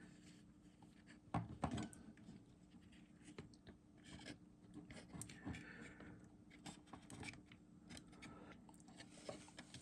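Faint scattered clicks and scratches of fingers handling a Panasonic RQ-V150 personal cassette player's open mechanism while a small square rubber drive belt is stretched onto its pulleys.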